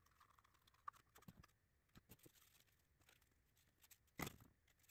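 Near silence with faint clicks and taps of lightweight 3D-printed LW-PLA fuselage parts being handled and slid onto thin carbon rods, and one louder knock of the plastic parts a little after four seconds in.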